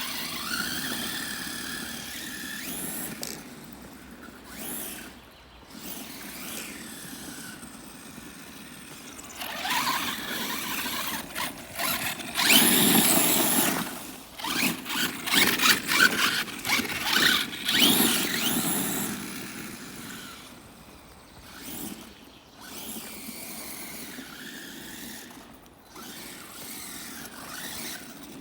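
Himoto Raider 1/8-scale electric off-road RC car driving, its motor and gears whining as it speeds up and slows. There are louder, rougher spells in the middle of the run.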